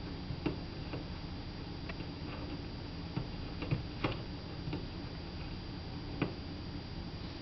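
Faint, irregular light clicks over a steady low hum: claws and paws of a kitten and puppy tapping on a tiled floor as they shift about.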